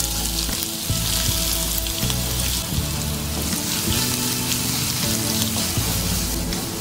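Hot oil sizzling, starting suddenly as chopped red onions are tipped into a nonstick pan with whole spices, then stirred with a wooden spatula. Background music plays underneath.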